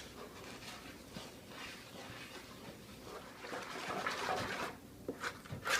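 Brownie batter being stirred by hand in a mixing bowl: hot melted butter, cocoa and water being worked into flour and sugar, a wet stirring that grows louder about three and a half seconds in, with a few sharp clicks near the end.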